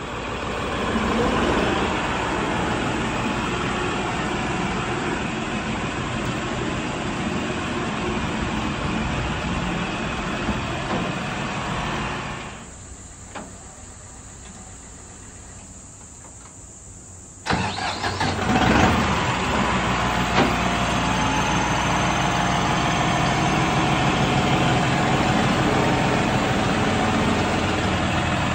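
New Holland CRDi diesel tractor engine running, then cut off about twelve seconds in. After about five quieter seconds it is cranked and starts, surging briefly before settling into a steady run.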